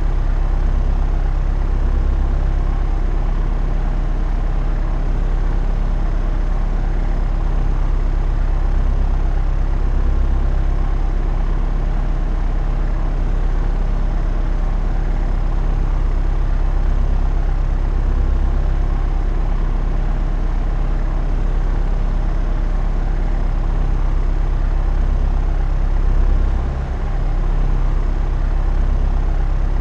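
Propeller aeroplane in flight: a steady, deep drone of engine and propeller, with a brief dip in level a few seconds before the end.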